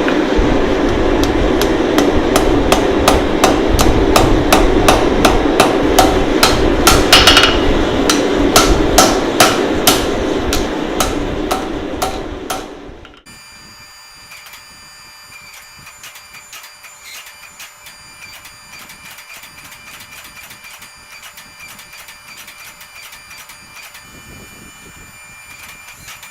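Hammer blows on steel during knife forging, about three to four strikes a second over a steady rumbling noise. About halfway through the sound cuts off abruptly to a much quieter background with faint ticking.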